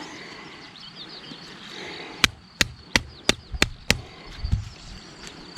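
Six quick sharp knocks about three a second, then one more near the end: the blade of a Victorinox pocketknife chopping or striking against wood.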